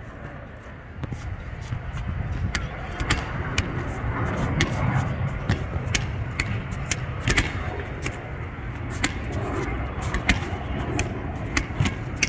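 Rubber handball rally: sharp slaps of the ball hitting the concrete court and wall at irregular intervals, with shoe scuffs, over a steady low rumble and distant voices.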